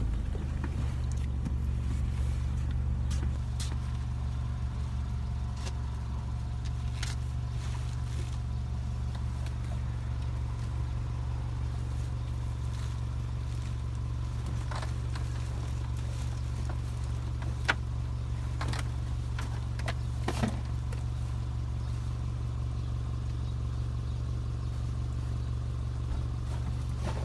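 A vehicle's engine running steadily, a constant low hum with no revving, broken by a couple of brief knocks in the second half.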